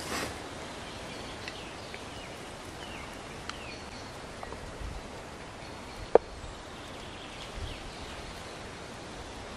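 Woodland ambience: steady background noise with a few short bird chirps, a brief rustle at the start, and one sharp knock about six seconds in.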